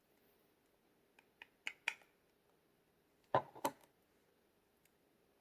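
A few light clicks and taps, then two louder knocks about three and a half seconds in, from a small plastic jar of loose-powder highlighter being handled.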